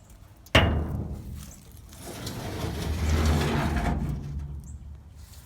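Sheet-metal side shield of a New Holland 658 round baler being opened: a sharp metal clank about half a second in, then a longer scraping, rattling noise that swells and fades.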